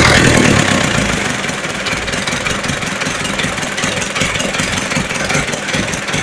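Engine running, dropping from higher revs to a steady idle about a second in.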